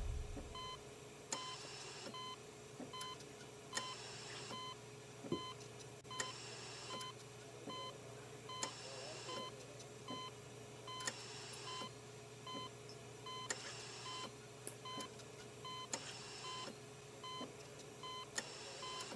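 Faint electronic beeping: a short, high beep repeating steadily a little over once a second, with a soft half-second hiss coming round about every two and a half seconds.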